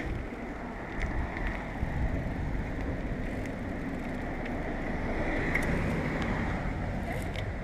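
Wind on the microphone of a bicycle-mounted camera while riding, with tyre and road noise and a few small rattling clicks from the bike. A car passes close by about five to six seconds in.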